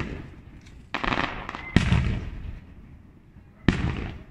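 Fireworks going off: three sharp bangs, about a second in, just under two seconds in, and near the end, each trailing away.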